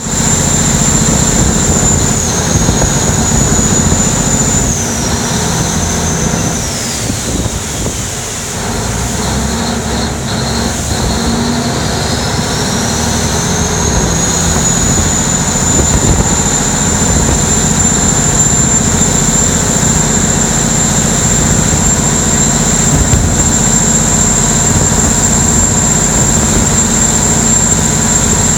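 Bangkok canal taxi boat running at speed: its engine drones loud and steady with a high whine over it, and water spray rushes along the hull. About five seconds in the engine eases off and the whine falls, then it picks back up and settles again by about fourteen seconds.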